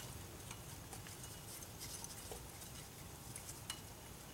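Faint, scattered small metallic clicks and taps as a screwdriver pushes the spring and rubber cup out of a rear drum-brake wheel cylinder.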